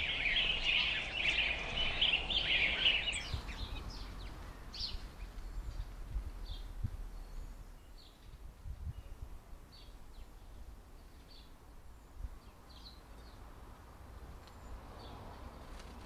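Small garden birds calling: a dense spell of high twittering for the first three seconds, then short, fainter high chirps about once a second.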